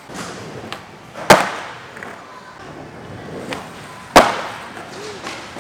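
Skateboards rolling on a concrete floor, with two loud board slaps or landings about a second in and about four seconds in, each ringing out in the echoing warehouse hall.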